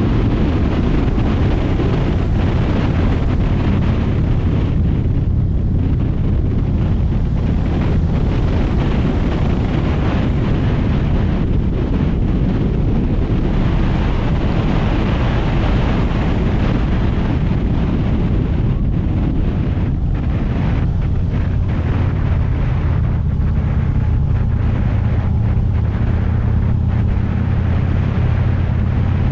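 Motorcycle engine running steadily at road speed, with wind noise rushing over the microphone.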